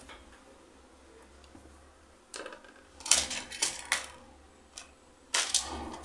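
Sharp clicks and taps of small objects being picked up and set down on a hard tiled worktop: a cluster about halfway through and another near the end.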